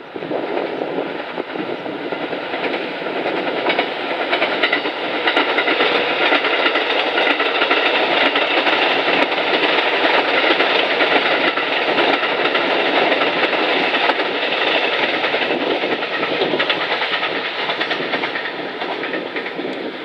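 Kiha 87-series Twilight Express Mizukaze diesel-electric train passing, with wheels clicking over the rail joints. The sound swells a few seconds in, holds through the middle and eases slightly near the end.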